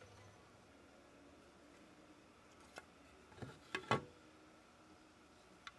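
Mostly near silence, with a few light knocks and clicks clustered near four seconds in, as a hand handles the metal motor end housing of a pump with its ceramic seal seat.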